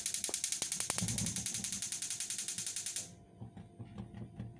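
Gas oven's electric spark igniter clicking rapidly, about ten clicks a second, for some three seconds while the upper grill burner is lit; a low rumble of the gas catching joins about a second in.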